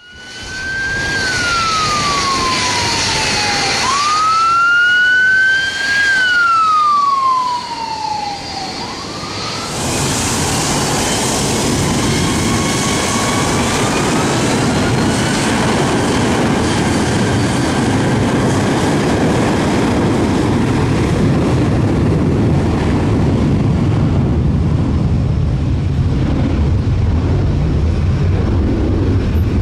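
Ambulance siren wailing in slow falling and rising sweeps for about the first nine seconds. Then the steady rumble and hiss of jet engine blast from a departing airliner takes over and drowns it out.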